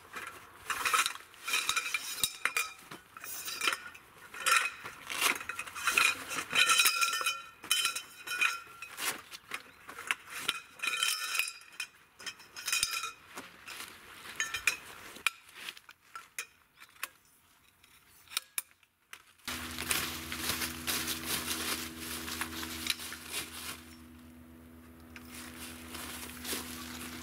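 Metal tent pole sections clinking and knocking against each other as they are unpacked and handled, in quick irregular clinks. About 19 seconds in the clinking stops and a steady low hum with a hiss takes over.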